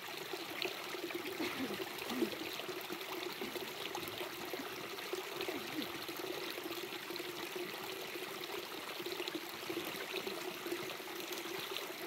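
Spring water pouring steadily from a plastic pipe outlet onto stones and into a shallow rocky stream.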